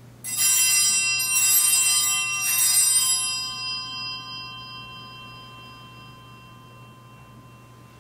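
Altar bells rung three times, about a second apart, as the host is elevated at the consecration, the bright ringing fading away over a few seconds.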